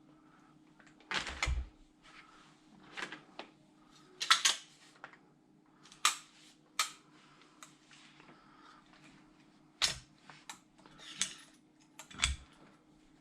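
Scattered sharp clicks and knocks, about a dozen, from an airsoft rifle's upper and lower receivers being handled and slid back together, two of them with a duller thud.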